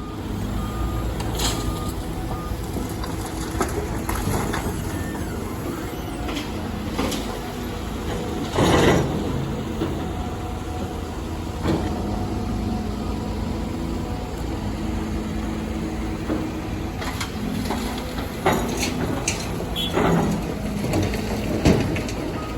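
Heavy earthmoving machinery with a steady diesel engine drone, broken by several loud knocks and clanks, the loudest about nine seconds in. Short repeated beeps sound near the start and again at the end.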